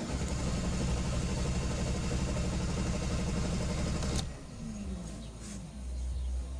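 2013 GMC Sierra's 5.3-litre V8 cranking on the starter with an even, rapid chug for about four seconds without catching, then the cranking stops with a click. This is the truck's hard-start condition.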